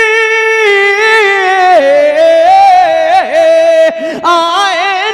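A man singing a naat unaccompanied, holding one long high note, then gliding down in pitch with wavering, ornamented turns before rising again near the end.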